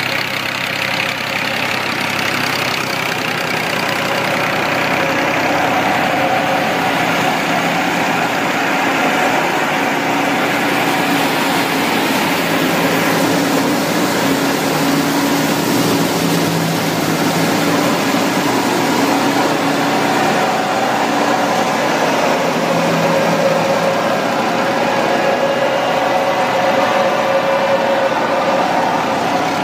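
New Holland tractor's diesel engine running steadily, driving a PTO-powered wheat thresher that is running and blowing out chaff. The two make one continuous drone.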